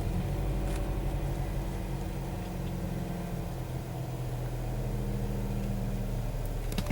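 Chevy Cobalt's 2.2L Ecotec four-cylinder engine idling steadily just after starting, now that a fuel trim reset has cured its no-start. A few light clicks come near the end.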